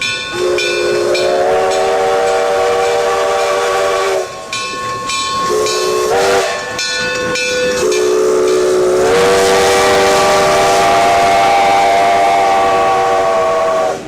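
Multi-chime steam locomotive whistle blown three times: a long blast of about four seconds, a short toot, then a longer blast of about six seconds. Each blast slides up in pitch as it opens, over a steady hiss of steam.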